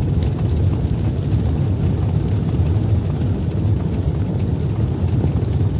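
Steady low rumbling sound effect of an animated logo intro, carrying on from a boom just before.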